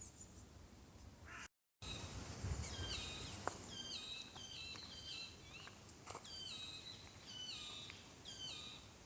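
Woodland songbirds singing, with several birds overlapping in repeated short phrases of clear notes that step down in pitch. The song starts after a brief gap about a second and a half in.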